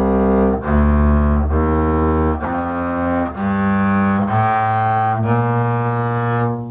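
Mid-1970s double bass played with a bow: a slow run of about seven sustained notes, each held about a second, in roughly B flat. The last note fades just before the end.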